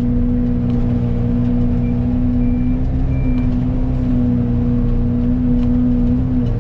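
Excavator running with its Fecon forestry mulcher head spooled up to speed: a loud, steady mechanical drone with a strong hum. Three short high beeps sound near the middle.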